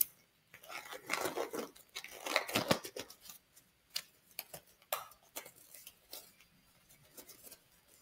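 Disposable exam gloves rustling and stretching as they are pulled onto the hands, with a few sharp snaps about four to five seconds in.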